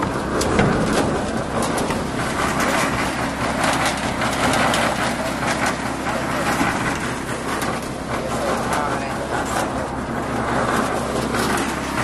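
Concrete mixer running with a steady engine hum, stones and concrete clattering in the turning drum, mixed with scrapes and knocks of shovels and buckets.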